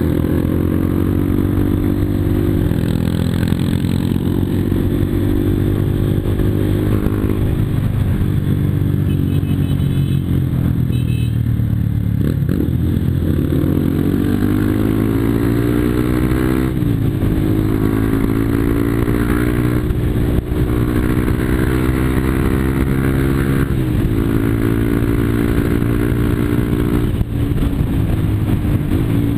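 Yamaha Fazer 250 single-cylinder motorcycle engine with an aftermarket exhaust, running loudly and revving. Its pitch climbs and then drops sharply several times.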